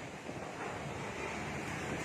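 Typhoon wind blowing steadily as an even rushing noise, with gusts buffeting the microphone.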